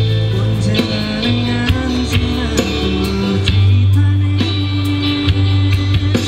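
A song with strong bass played loud through a DAT DT1502 portable speaker with twin 15-inch woofers during a sound check.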